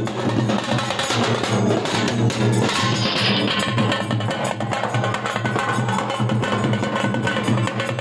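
Dhol-type drums beaten with sticks in a fast, steady procession rhythm.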